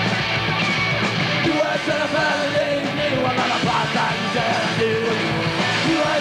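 Live punk rock band playing loud: distorted electric guitar, bass and drums.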